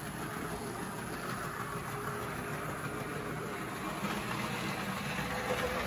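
Pittman DC91 motor and gearing of an HO scale Hobbytown E7 model diesel locomotive running steadily as the chassis rolls along the track on a test run, getting a little louder in the second half.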